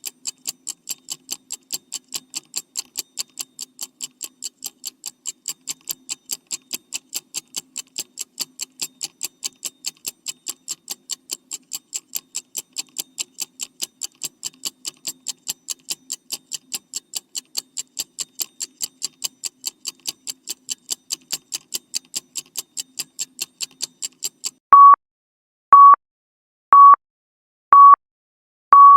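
Countdown timer sound effect: fast, even clock-like ticking, about four ticks a second, then four short high beeps about a second apart and a long beep near the end as the timer runs out.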